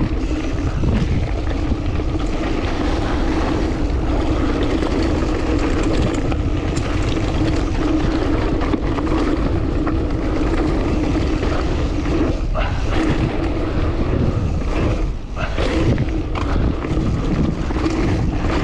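Mountain bike descending a rocky trail: steady rush of wind on the camera's microphone and tyre rumble, with knocks and rattles from the bike over rocks and a couple of harder hits in the second half.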